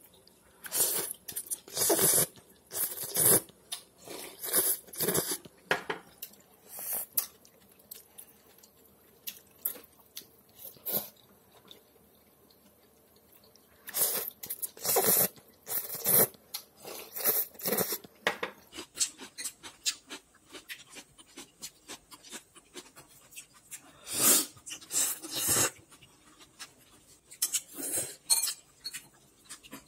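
Wide rice noodles being slurped from a bowl of noodle soup. The short, loud slurps come in three clusters, near the start, in the middle and near the end, with quiet stretches between.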